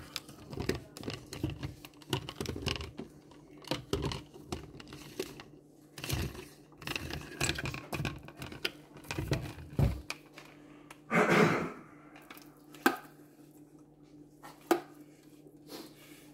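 Handling noise of plastic containers and packaging: a string of clicks, knocks and crinkling rustles, with a louder rustle about eleven seconds in and a few sharp clicks after it.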